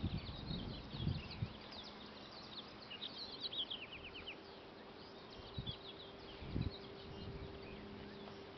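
Birds chirping and twittering in quick high notes, with a falling run of chirps about three seconds in. A faint steady hum joins in the second half, and there are a few low bumps.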